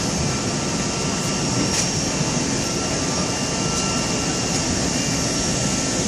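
Steady rush of jet noise with a few thin, steady high whines, heard from the jet bridge at an aircraft's open door.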